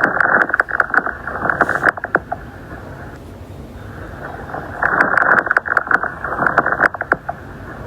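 Lung sounds recorded through a stethoscope: two breaths, each swelling with a burst of many short, sharp clicks, the fine crackles (fine rales) with their Velcro-like sound. These are typical of small collapsed airways snapping open during inspiration in interstitial lung disease such as pulmonary fibrosis.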